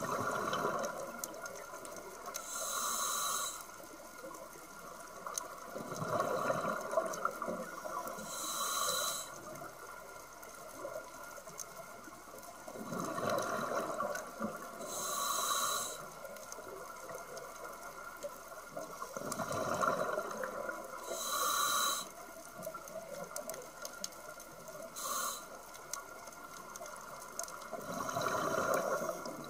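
Scuba diver breathing through a regulator: hissing inhalations alternate with bubbling exhalations, one breath about every six to seven seconds.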